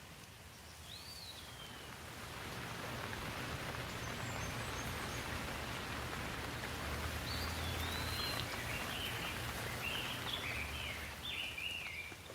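Steady rain, swelling about two seconds in and easing near the end. A bird calls once about a second in, and a run of short chirping bird calls comes in the second half.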